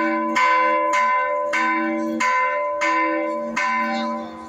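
Church tower bells ringing the second call to Sunday mass: quick, evenly spaced strikes about every half second or so. The strikes stop about four seconds in and the bells' ring fades out.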